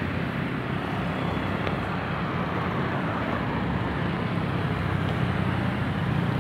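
Steady low rumble of outdoor background noise with an even hiss above it and no distinct events.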